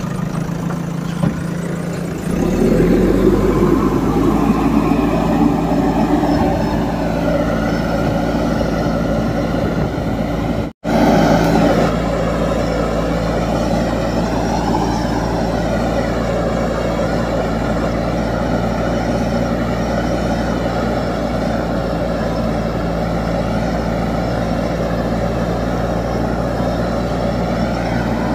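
JCB loader's diesel engine running steadily under working load as the machine pushes a loaded front bucket of earth, its note stepping up about two seconds in. The sound cuts out for an instant near the middle.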